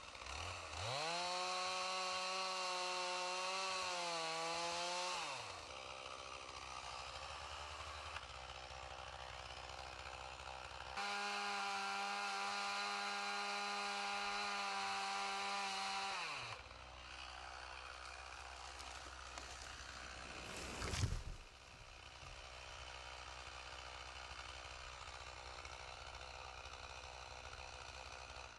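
Chainsaw revved to full throttle for about five seconds, dropping back to idle, then revved high again for another five seconds and left idling. A short sharp knock comes about two-thirds of the way through.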